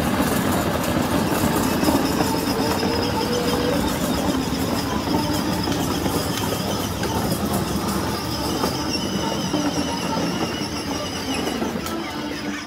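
Hard plastic wheels of a children's battery-powered ride-on toy Jeep rolling and rattling over paving tiles, with a steady high whine from its electric drive.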